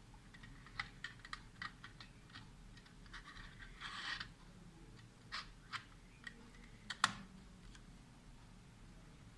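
A run of small, irregular clicks and taps from handling a mini PC's hardware, with a short scraping rustle about four seconds in and one sharper click near seven seconds.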